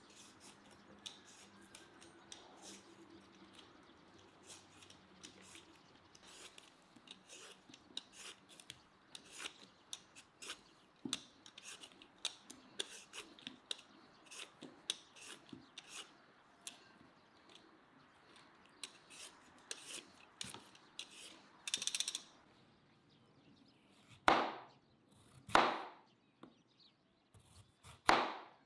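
A Y-peeler scraping the skin off a raw beetroot in short strokes, about two a second. Near the end a knife slices through the peeled beetroot onto a wooden cutting board in a few slow, louder cuts.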